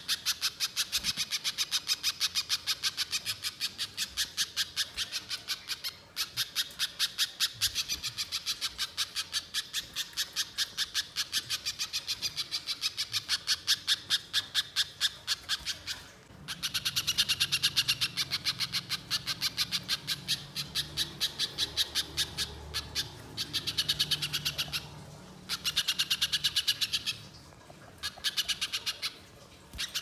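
Spiderhunter (pijantung) singing a long, rapid run of sharp, high repeated notes, several a second, with a short break about 6 seconds in, a longer one about 16 seconds in and a few brief pauses near the end.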